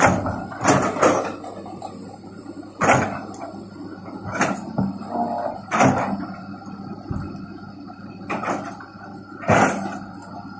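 Hitachi crawler excavator running steadily as its bucket digs and tears into brush, roots and soil, with about eight short, sharp noises at irregular intervals.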